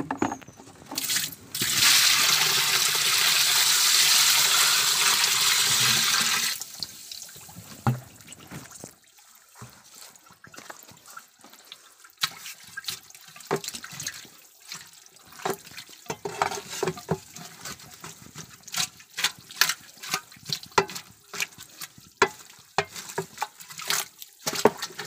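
A bucketful of microbial liquid poured into a barrel of fermenting fish mash: a steady gush lasting about five seconds. Later a long-handled hoe blade works the wet mash, with repeated short wet knocks and splashes.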